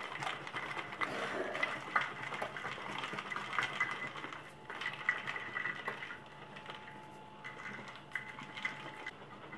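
Ice cubes and milk rattling and sloshing inside a closed stainless-steel flask that is being shaken hard by hand. It is a fast, dense clatter that dies away about six seconds in, when the shaking stops.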